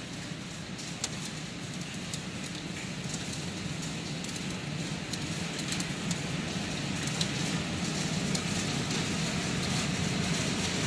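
Hail and heavy rain pelting a yard and garden plants: a steady hiss with scattered sharp ticks of hailstones, growing gradually louder.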